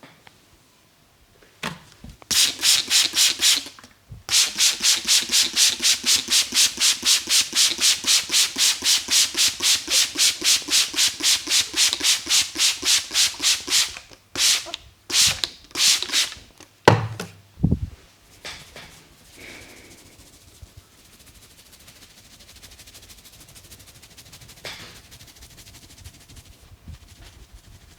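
Hands rubbing briskly back and forth through hair on the scalp during a head massage, about four strokes a second for some ten seconds. Then come a few slower separate strokes and a low thump, and the rubbing goes on softly.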